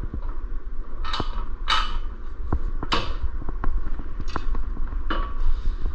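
Metal mounting hardware being handled: scattered clicks and knocks with several short scraping rasps as bolts and washers are worked into an engine mount.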